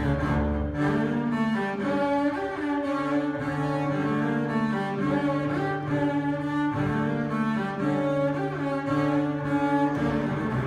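Unaccompanied double bass played with the bow: a line of sustained notes, each held for a second or two.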